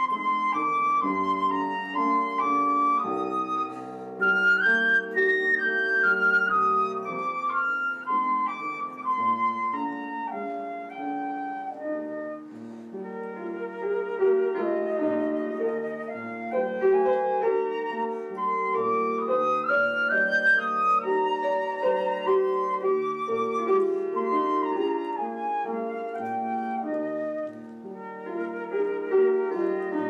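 A concert flute and a grand piano playing a duet. The flute carries a flowing melody with rising and falling runs over sustained piano chords.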